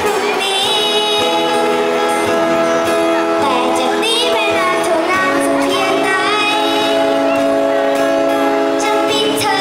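A boy singing into a microphone, accompanied by two acoustic guitars and amplified over a PA. His voice holds long notes and slides between pitches.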